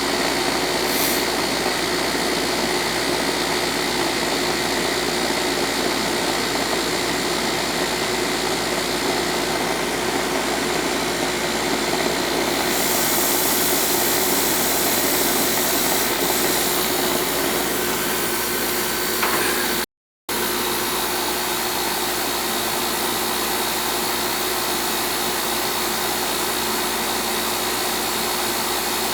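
Air-conditioning condensing unit running steadily with the system charged and on, its compressor and condenser fan making a constant hum and hiss while refrigerant is being added. The sound cuts out completely for a split second about two-thirds of the way through, then carries on the same.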